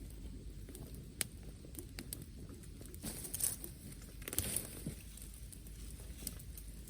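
Wood fire crackling, with a sharp pop about a second in and two short bursts of crackle and rustle around the middle.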